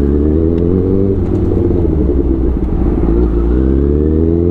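Honda CBR1000's inline-four engine at low revs: the pitch holds, drops away over about a second and a half as the throttle closes, then climbs again near the end as the throttle opens.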